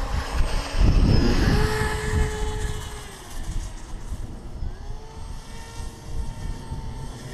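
Brushless electric motor and air propeller of an RC airboat whining, its pitch rising, holding and falling twice as the throttle is worked. Low wind rumble on the microphone, strongest about a second in.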